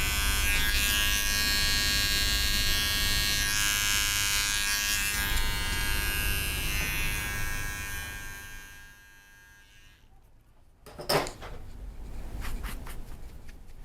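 Electric hair clippers running steadily with an even buzz while trimming short hair, then switched off about eight seconds in and winding down to quiet. A sharp clack follows about three seconds later, then a run of light, quick clicks near the end.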